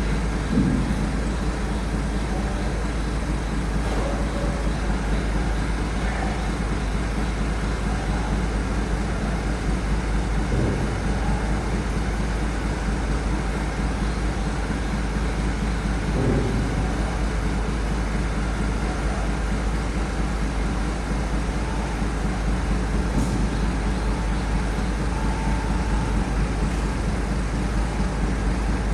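Steady rumble and road noise of a heavy road vehicle, with a few short low thumps.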